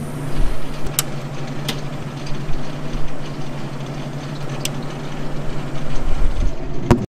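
Miller Aerowave TIG welding power source running: a steady fan whir over a low electrical hum, with a few sharp clicks as its controls are set. The sound cuts off suddenly near the end.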